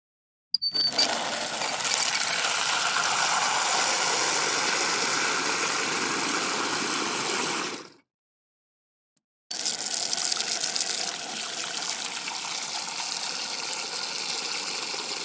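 Water gushing hard from an outdoor faucet, with a brief high squeak as it opens. It starts suddenly, runs steadily for about seven seconds and dies away, then after a short gap gushes again and settles to a slightly lighter flow.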